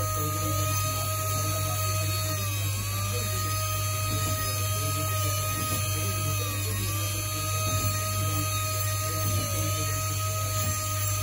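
Jeweller's electric micromotor handpiece with a small cutting wheel running at high speed while it engraves cuts into gold chain links: a steady high whine over a low hum, dipping briefly in pitch every few seconds.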